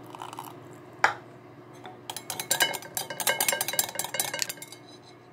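Wire balloon whisk beating egg yolks, oil and lemon juice in a bowl, the wires clinking rapidly against the bowl in a fast tapping rhythm from about two seconds in, as the sauce emulsifies and turns pale. One sharp clink comes about a second in.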